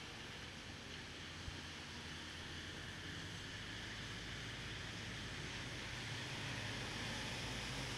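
Steady hiss of rain and wet-street city traffic over a low rumble, slowly growing louder, with a single small tick about one and a half seconds in.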